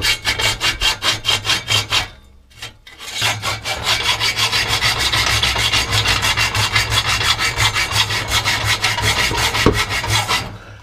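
Hacksaw cutting through a seized exhaust bolt with quick, even back-and-forth strokes, several a second. It pauses briefly about two seconds in, resumes faster, and stops near the end as the bolt is cut through.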